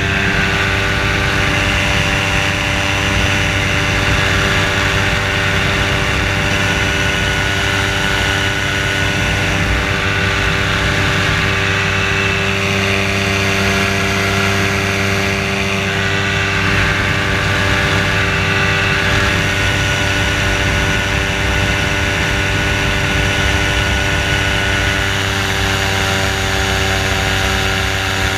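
Engine and propeller of a float-equipped ultralight trike (motorized hang glider) running at a steady cruise in flight, with rushing wind on the microphone.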